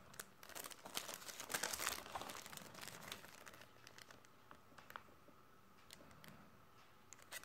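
Small plastic zip-lock bags of mounting parts crinkling as they are handled, busiest and loudest in the first three seconds, then quieter with a few scattered light clicks.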